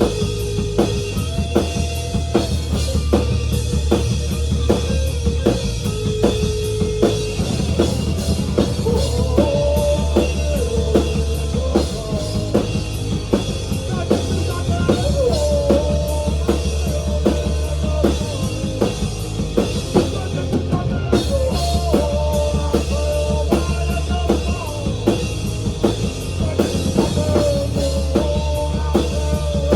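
Rock music with a steady drum-kit beat, bass and a melody line.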